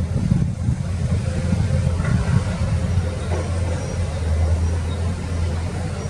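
Diesel engines of Komatsu PC210 hydraulic excavators running steadily under working load, a continuous low drone.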